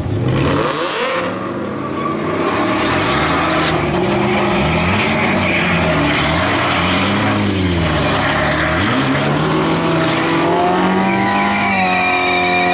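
A car doing donuts: its engine revs up and down over and over, about once a second, over the hiss of spinning, screeching tyres. Near the end a steady held tone comes in.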